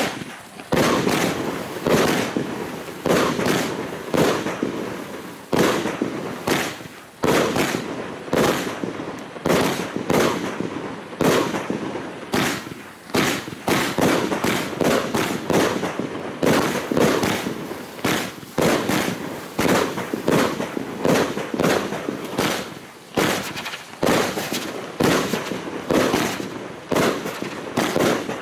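Luypaers Asiatic Cheetah 100-shot fireworks cake firing in rapid succession, about two shots a second. Each shot is a sharp report that fades over a fraction of a second.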